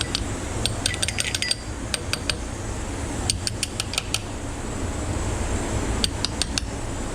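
Metal clinking and tapping of hand tools against engine parts during an engine teardown, coming in three short clusters of quick clicks over a steady low hum.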